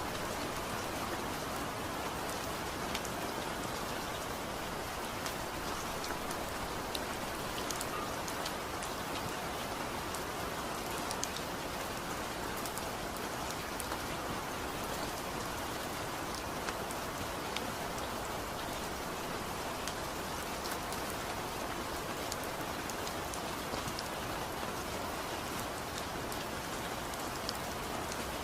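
Heavy rain drumming steadily on a tin roof, a dense even hiss with countless sharp drop taps on the metal.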